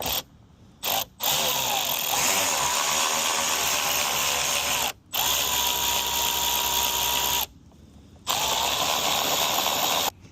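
Handheld power drill driving a screw: a few quick trigger blips, then three long runs of a steady motor whine with brief stops between them.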